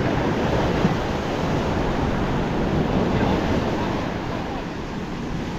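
Ocean surf breaking and washing up a sandy beach, a steady rushing noise.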